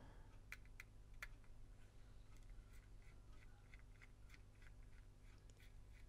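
Near silence with a few faint, short clicks of a small screwdriver working the tiny screws on top of a camcorder, over a low steady hum.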